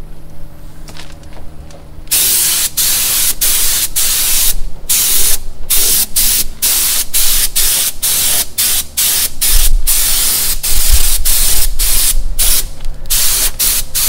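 Compressed-air gravity-feed paint spray gun spraying, starting about two seconds in as a loud hiss broken into many short bursts with brief gaps where the trigger is let off between passes.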